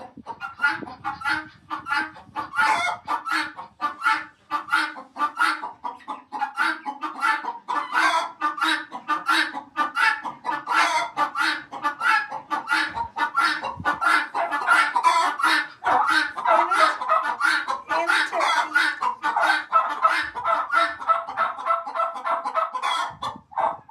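Mixed flock of chickens and guinea fowl calling together: a dense, continuous chatter of rapid, harsh, overlapping calls and clucks, with the older guinea hen's 'laughing' calls among them.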